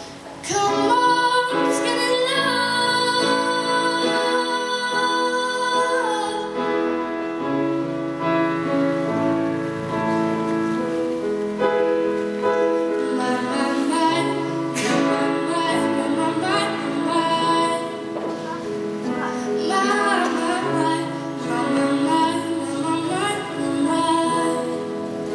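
A young woman singing solo with instrumental accompaniment.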